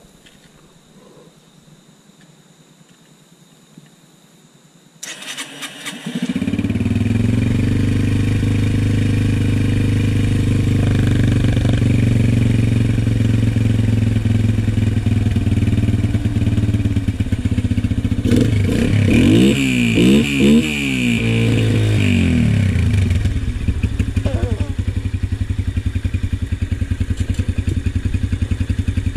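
Yamaha TT-R125's single-cylinder four-stroke engine being started cold after sitting two weeks. It turns over for about a second, about five seconds in, catches, and then runs steadily.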